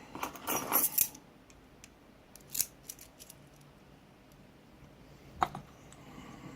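Small metallic clicks and rattles from hand tools worked against a brass padlock: a quick cluster in the first second, a few more around the middle and one sharp click near the end.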